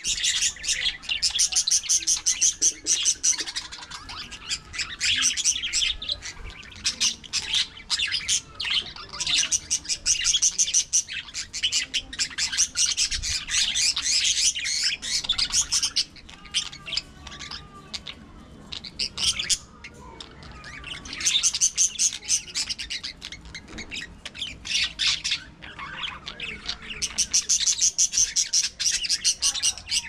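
A flock of budgerigars chirping and chattering in rapid, high-pitched spells of a second or two, with quieter stretches between.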